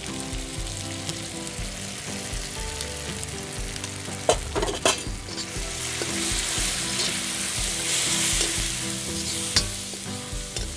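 Onion-tomato masala and spices sizzling in hot oil in an iron kadhai while a steel ladle stirs and scrapes it, frying the masala until it releases its oil. A few sharp knocks of the ladle on the pan come about four and a half seconds in and again near the end, and the sizzle grows louder once the stirring gets going.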